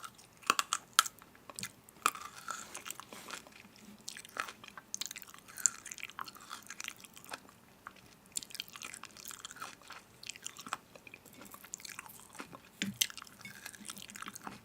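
Close-up chewing and biting of crunchy food, with irregular crackling crunches; the sharpest bites come about a second in and again near the end.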